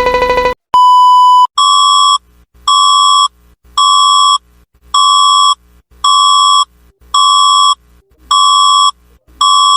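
Electronic emergency alert tone. A rapid pulsing tone cuts off just after the start, a single long beep sounds about a second in, then a train of eight identical beeps follows at about one a second.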